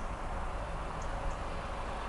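Steady outdoor rushing noise with a low rumble, and two faint, short, high chirps about a second in.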